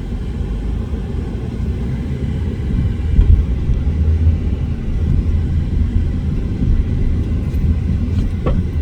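Low road-and-engine rumble heard from inside a moving car on a bumpy street, growing louder about three seconds in.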